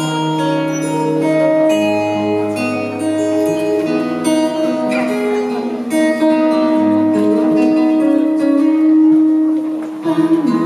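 Instrumental music introduction led by guitar, with held notes and a bass line underneath.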